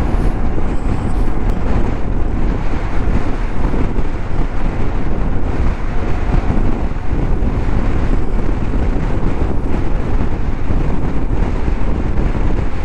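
Steady wind rush over the microphone while riding a Moto Guzzi V85TT, with the bike's air-cooled transverse V-twin and road noise underneath.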